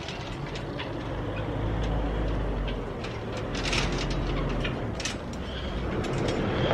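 A low rumble with a few short knocks and clinks scattered through it, as workers work steel stirrups loose from a tie-beam rebar cage.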